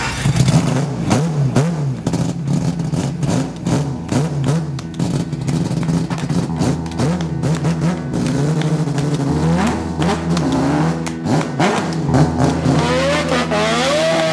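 Naturally aspirated four-rotor Mazda rotary engine of a drift car revving hard, its pitch rising and falling over and over with sharp crackles. Music plays underneath.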